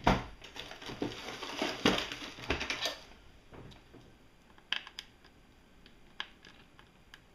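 Rustling and scraping as the toy's hard plastic base is handled and shifted on a wooden table, with a few knocks, then quieter, with a few separate sharp clicks of a small Phillips screwdriver working at the stiff battery-cover screw.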